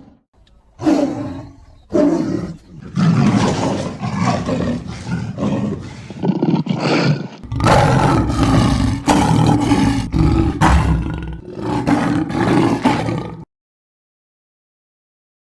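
Lion-style cartoon roars and growls, a string of them in quick succession: two short ones in the first two seconds, then longer back-to-back roars, cutting off to dead silence about two seconds before the end.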